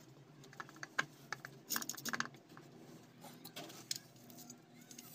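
Irregular small clicks and scrapes of metal and plastic parts being fitted by hand into an electric wood cutter's motor housing, with a quick run of clicks about two seconds in.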